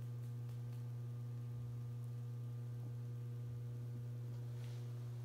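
Steady low electrical hum, with fainter higher tones above it, unchanging throughout.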